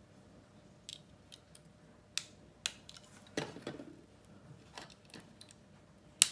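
Plastic Lego pieces clicking and snapping together as parts are pressed onto a small brick-built rocket model by hand: scattered light clicks, a brief run of rattling clicks about three and a half seconds in, and one sharp snap near the end.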